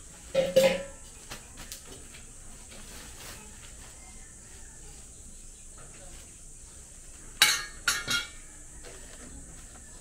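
Metal parts clinking and clattering: one clatter about half a second in and two sharp clanks about seven and a half seconds in, with faint scattered ticks between.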